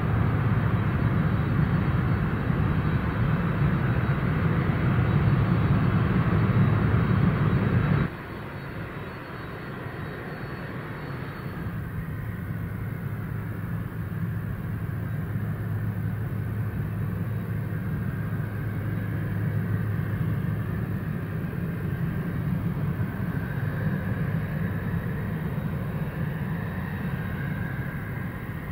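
Jet engines of a Boeing 747-400 (General Electric CF6 turbofans) running loud as the jumbo rolls out on the runway after touchdown. The sound drops sharply about eight seconds in, leaving a steadier, quieter jet rumble.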